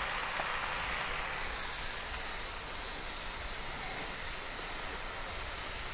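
A stir-fry of ground meat and shredded cabbage sizzling steadily in an electric wok, a constant frying hiss that eases slightly after a couple of seconds.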